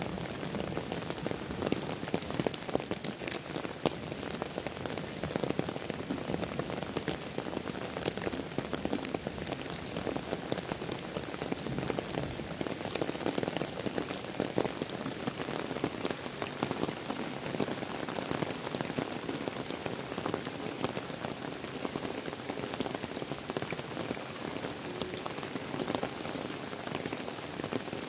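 Heavy rain falling steadily on leaves, ground and open lake water: a dense, even hiss of rain with many sharp individual drop ticks.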